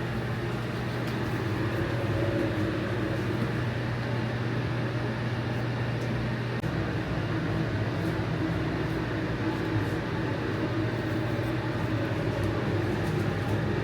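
Steady engine and road noise of a service van driving, a constant low hum under an even rush that does not change.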